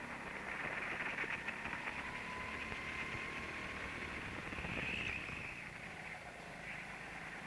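Go-kart driving, heard from an onboard camera as a muffled, steady rush with a faint high whine. It drops a little after about five seconds.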